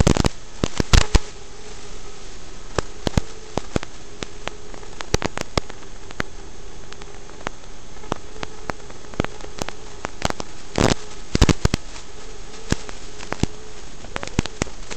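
Steady static hiss with irregular crackles and pops, heaviest about a second in and again near the middle, over a faint wavering tone.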